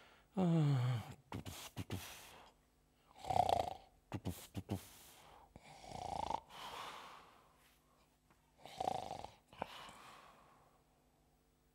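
A man acting out sleep with his voice: a falling, groaning sigh about half a second in, then three snores a few seconds apart, with short mouth clicks in between.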